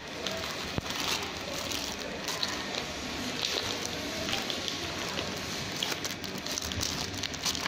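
Clear plastic packaging crinkling as it is handled, a steady stream of small crackles and clicks.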